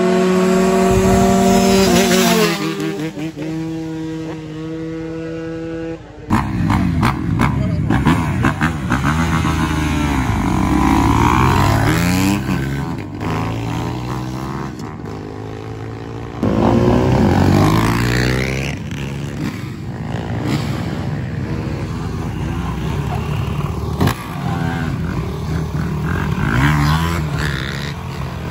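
Dirt bikes and four-wheeler ATVs revving and riding by one after another, engine pitch rising and falling as each passes. The sound changes abruptly about six seconds in.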